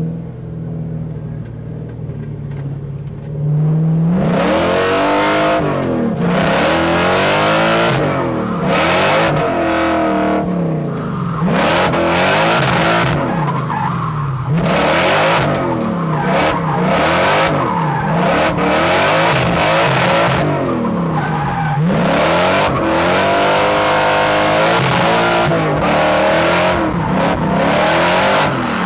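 Supercharged Toyota 1UZ V8 in a drift truck idling, then from about four seconds in revving up and down over and over while the tyres squeal and skid through a drift run.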